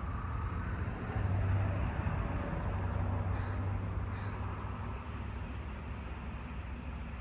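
A distant engine running with a low, steady hum that swells about a second in and slowly eases off. A crow caws faintly twice in the middle.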